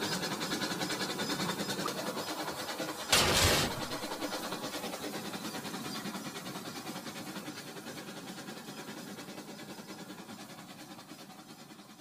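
Remote-control toy train set on plastic track: a steady rhythmic clatter of the toy trains' wheels and motor that slowly fades. About three seconds in comes a short, loud crash as the derailed cars collide.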